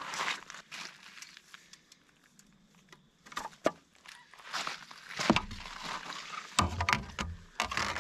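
Footsteps crunching on a gravel sandbar, with scattered clicks and knocks of gear being handled. The loudest, closest knocks come near the end.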